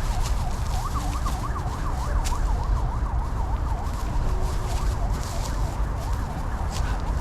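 Emergency vehicle siren in fast yelp mode, a rapid rising-and-falling wail about four cycles a second that fades away about five seconds in. Heavy low wind rumble on the microphone runs underneath.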